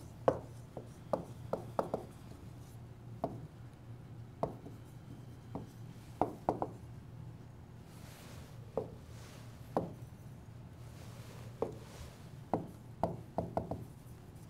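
Stylus tapping and scraping on a pen tablet during handwriting: irregular sharp clicks, often in quick clusters of two or three, over a faint steady hum.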